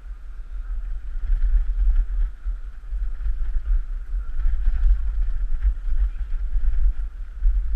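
Wind buffeting the microphone of a bicycle-mounted camera while riding, a deep gusty rumble that rises about a second in and keeps surging and easing.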